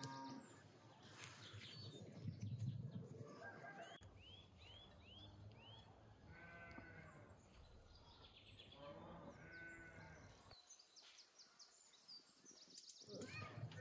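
Faint sheep bleating a few times, each call wavering and under a second long, with a quick run of small bird chirps between them.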